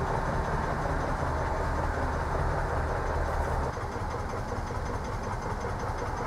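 A 1952 Gmeinder narrow-gauge diesel locomotive idling steadily, with a low engine hum that grows somewhat quieter about four seconds in.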